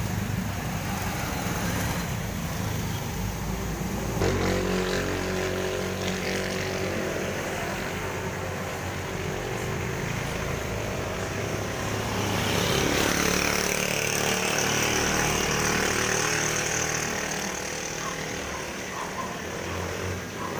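Street traffic: a vehicle engine running steadily nearby, with a louder rush of passing traffic from about twelve to sixteen seconds in.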